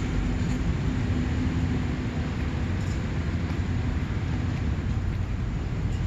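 Steady low rumble of street traffic, with a faint engine hum over the first few seconds.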